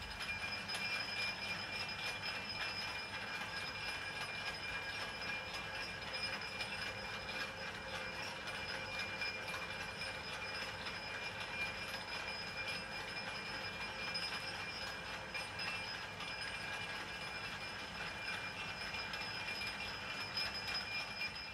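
Homemade metal lathe running steadily, driven by an electric motor through a V-belt and step pulleys, with its newly fitted change-gear train meshing: a continuous metallic running noise with a steady high-pitched whine. It is a trial run of the change-gear assembly.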